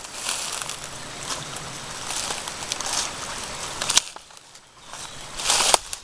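Rustling and crunching as someone walks through dry leaf litter and sticks. There is a sharp snap about four seconds in, then it goes quieter with one more short rustle near the end.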